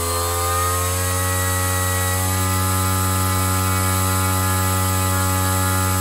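Parrot Disco's electric motor spinning an Aeronaut folding 3-blade 8x5 CAM propeller on the bench at cruise-level current (about 3 to 4 A). It makes a steady, even hum made of several tones, rising slightly in pitch right at the start and then holding steady.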